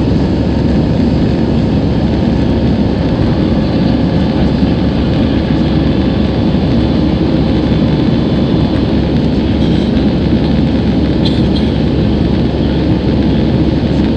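Airbus A320 cabin noise during the climb after take-off: a steady, loud roar of the jet engines and rushing air, heard from inside the cabin, with a faint steady hum above it.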